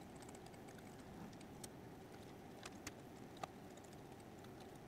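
Near silence, with a few faint, sharp clicks and taps of small parts being handled and fitted onto the printer's frame extrusion.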